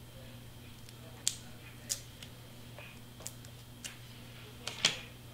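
A handful of light, sharp clicks and taps as small cardstock and foam-tape pieces are handled and pressed down on a cutting mat, the loudest about a second in and near the end, over a faint steady hum.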